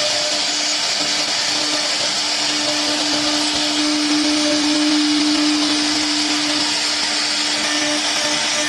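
A 3-axis CNC router's spindle running steadily while machining a wooden cabinet door: a constant whine over a hiss, a little louder about four to five seconds in.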